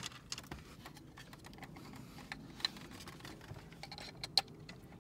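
Scattered light plastic clicks and taps from a Ford F-150 dash button panel and its wiring connectors as they are handled and plugged in, with a sharper click a little over four seconds in as a connector snaps into place.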